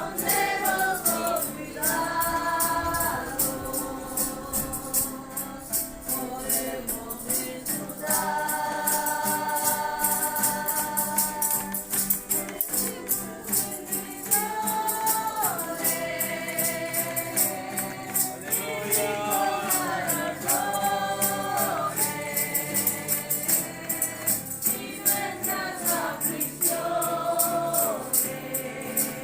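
Congregation singing a slow worship song in long held notes, with hand percussion shaken in a steady rhythm throughout.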